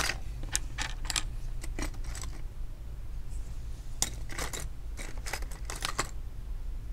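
Light metallic clicks and scrapes in short clusters, from a precision screwdriver working the tiny screws of the iPhone 8's top bracket, over a steady low hum.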